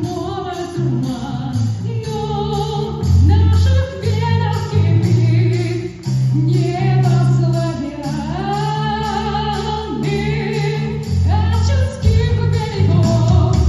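Rock band playing live: a singer holds and bends long sung notes over a bass line and a steady drum beat.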